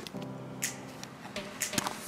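Scattered clicks and rustles of nylon gear being handled, as with a backpack being opened.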